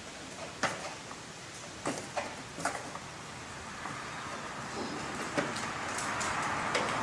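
Plastic rear side trim panel of a BMW E46 convertible being pressed down into place, giving a handful of sharp knocks and clicks, most in the first three seconds and more near the end, over a hiss that grows louder in the second half.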